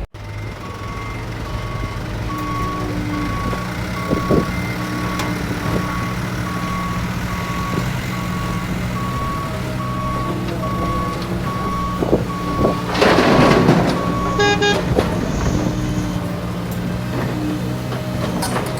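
Heavy vehicle reversing alarm beeping at one steady pitch, a little under once a second, over a diesel engine running at low speed. The beeping stops about fourteen seconds in, just after a loud rush of noise, with a few short knocks along the way.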